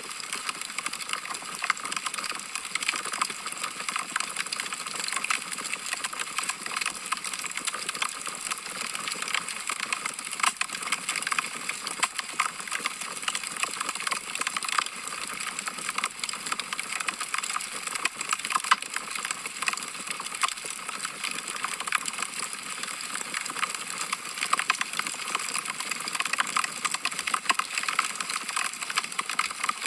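Wood fire crackling in a fireplace: a dense, irregular run of small sharp crackles over a soft hiss, with a few louder pops.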